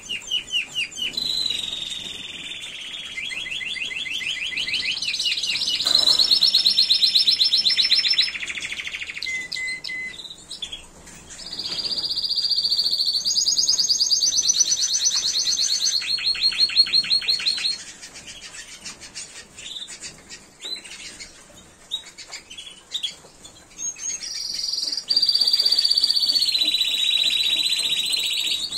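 Timbrado Español canaries singing: long, rapid trilled rolls, each held for a few seconds before jumping up or down to a new pitch. In the middle there is a quieter stretch of short, scattered chirps before the rolls start again.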